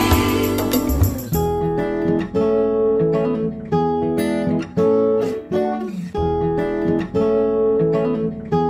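Instrumental passage of a song with acoustic guitar strumming chords. The fuller, brighter backing drops out about a second and a half in, leaving mostly the strummed chords.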